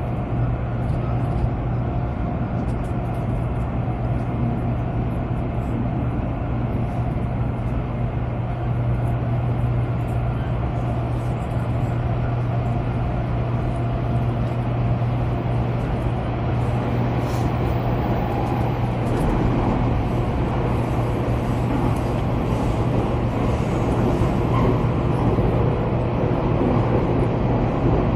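Steady running noise inside the carriage of a Taiwan High Speed Rail train travelling at speed: a constant low hum under an even rush of track and air noise.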